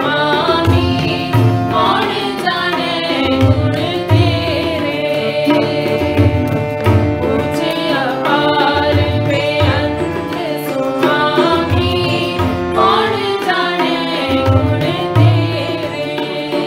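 Instrumental accompaniment to a Sikh shabad: tabla keeping a steady beat under a sustained, ornamented melody with held drone tones.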